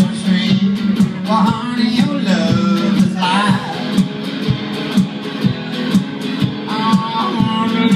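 Live music: an electric guitar played over a steady beat and a held low note, with a melodic line rising and falling above.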